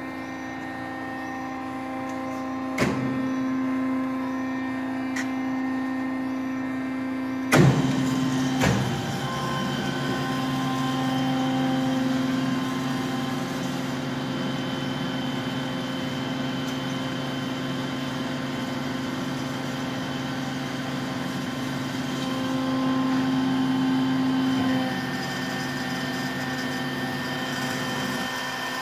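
A 1989 Amada HA-500 horizontal bandsaw running with a steady mechanical hum. There is a sharp clunk about three seconds in and a louder pair of clunks around eight seconds, after which the machine's running noise becomes fuller.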